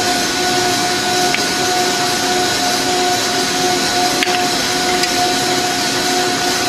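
Steady drone of running factory machinery, a continuous noise with a steady whine through it, and a couple of faint taps about a second and a half and four seconds in.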